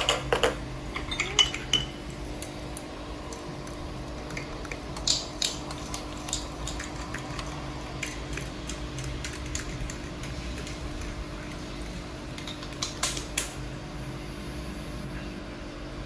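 A spoon and dishes clinking in a few short clusters of sharp clicks, over a steady low hum.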